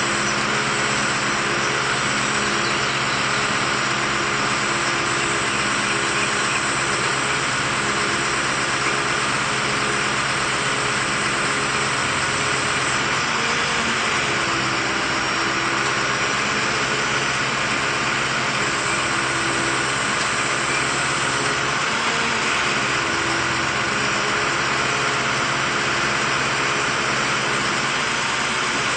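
An engine running steadily at a constant speed, with slight dips in pitch now and then.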